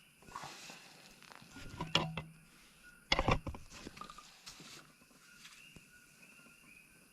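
Short knocks and clatter of hand tools working a stuck part loose on a Honda Grom engine. They come in two brief bursts, about two seconds in and again around three seconds in.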